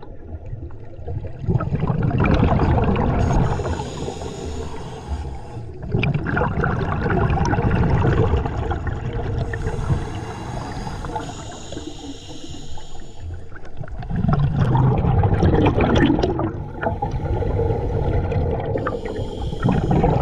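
Scuba diver breathing through a regulator underwater: rumbling bursts of exhaled bubbles alternate with the hiss of each inhalation, in a slow cycle of a few breaths.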